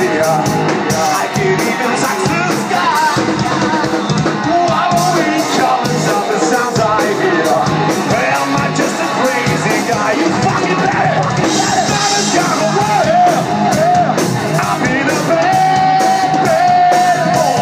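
Live hard-rock band playing loud: sung and shouted lead vocals over distorted electric guitar, bass guitar and a drum kit, with a long held note near the end.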